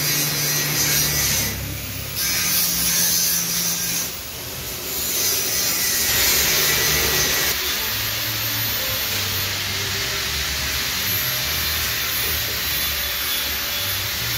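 Steady whirring, hissing machine noise with a low hum that shifts in pitch from time to time.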